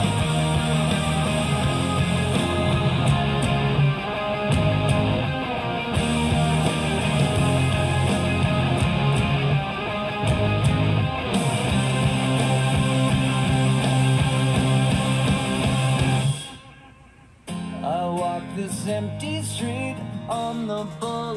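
Rock song with guitar and vocals played back through a pair of Panasonic bookshelf speakers driven by a tube preamp and a two-channel power amp, heard in the room. About seventeen seconds in, the music drops away for about a second, then comes back.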